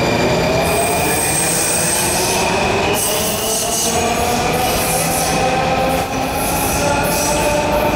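Washington Metro Red Line train pulling out of the underground station and gathering speed. Its motors give a rising whine, with a thin high squeal over the steady rumble of the cars.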